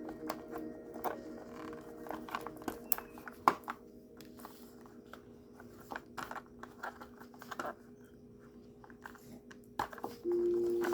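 Small plastic toy packaging being handled and opened: irregular clicks, taps and crinkles over a steady low hum. A louder steady tone comes in near the end.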